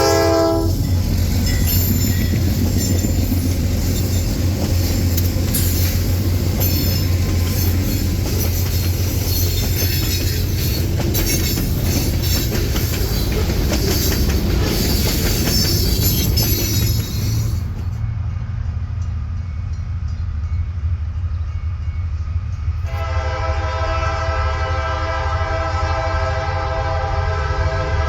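Diesel freight locomotive running past under power, its turbocharger failing: a horn blast cuts off just after the start, then a steady deep engine rumble with rolling wheel clatter, and the horn sounds again for the last five seconds.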